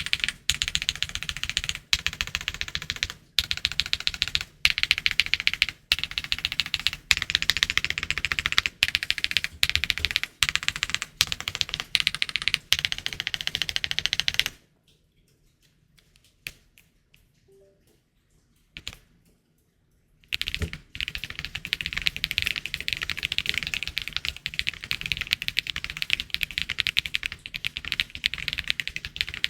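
Fast typing on a QK65 mechanical keyboard fitted with hand-lubed Akko Lavender Purple tactile switches: a dense run of keystroke clacks. About halfway through there is a pause of about six seconds with only a couple of faint clicks, then the typing resumes.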